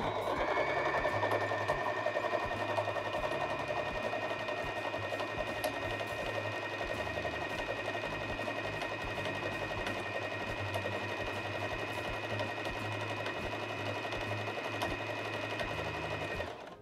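Janome 2222 portable sewing machine running steadily while stitching a zigzag pattern at a short stitch length. A steady motor whine sits over a fast, even needle rhythm, and the machine stops near the end.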